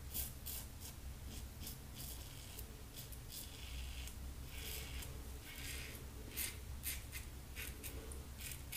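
Fine Accoutrements "Marvel" double-edge safety razor scraping through lather and two days' stubble on the cheek: a series of short, faint rasping strokes.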